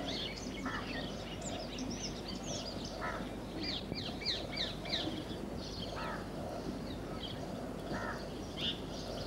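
Birds chirping: many short, quick calls that sweep downward in pitch, with a few lower calls now and then, over a steady low background noise.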